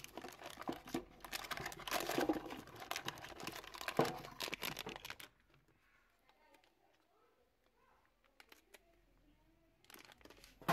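Clear plastic packaging crinkling and rustling as a new electric fuel pump is handled out of its box, stopping abruptly about halfway through; then very quiet, with a single short knock near the end.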